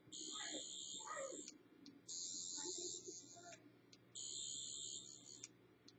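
The built-in soundboard of a Doctor Who sonic screwdriver vape mod playing its sonic-screwdriver effect through a small speaker. The high electronic whine sounds four times, each burst lasting about a second and a half, with short gaps between.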